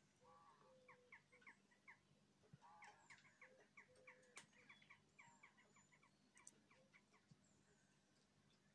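Faint bird calls: a quick, irregular run of short, downward-sliding notes, with a few thin high whistles among them.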